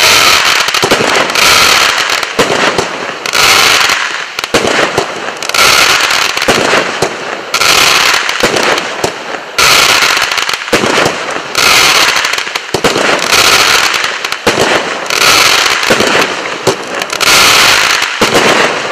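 A 200-gram consumer fireworks cake firing its shots one after another, about every two seconds, each a loud blast with dense crackling.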